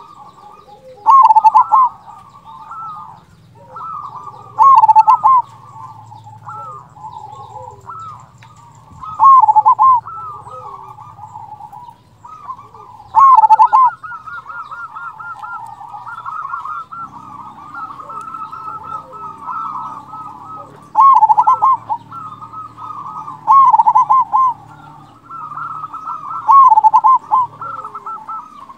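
Zebra dove (perkutut) singing its cooing song. A loud phrase with a big 'kung' note comes every few seconds, with softer cooing between.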